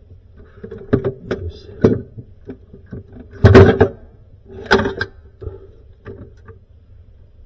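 Handling noise from working on parts by hand: scattered knocks and clatters, the loudest a short clatter about three and a half seconds in, over a faint steady hum.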